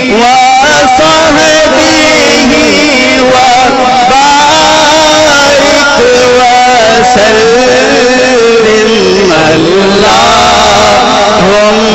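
A man's voice singing a Punjabi naat unaccompanied into a microphone, in long, drawn-out, ornamented notes with no break; the line dips low about nine seconds in and climbs again.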